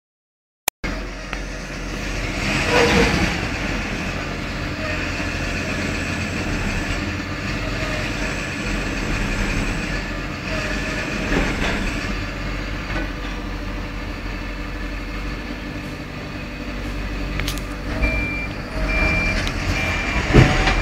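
Diesel engines of a tipper truck and a mini excavator running under load as the small excavator tries to pull the truck out of the mud, swelling a few times. Near the end a high warning beeper starts sounding at an even pace.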